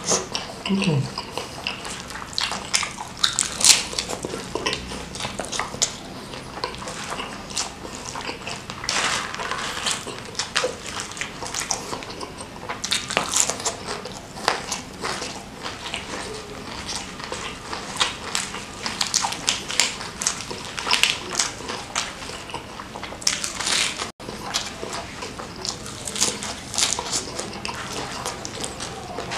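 Close-miked eating: chewing and crunching with wet mouth sounds and frequent sharp crackles, some from crispy fried food, with a short low hum about a second in.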